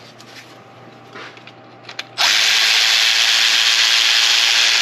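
Power tool spinning a bolt while refitting an engine's intake. It starts abruptly about two seconds in and runs as a loud, steady, even whir.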